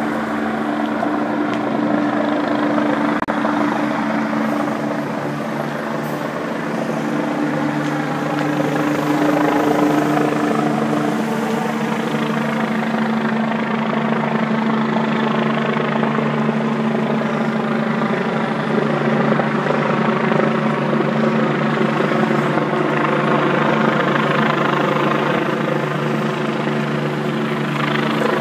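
Helicopter flying overhead: a steady, continuous rotor and engine drone with a low hum whose tones shift a little about ten seconds in.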